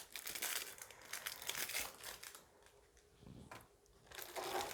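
Packaging crinkling and rustling in bursts as accessories are unwrapped and handled, falling quiet for about a second and a half in the middle before starting up again near the end.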